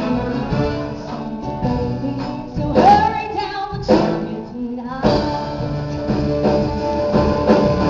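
Live band with drums, guitars and keyboards playing a Christmas song while a woman sings into a microphone, amplified through a theatre's sound system. Sharp drum hits land about three, four and five seconds in.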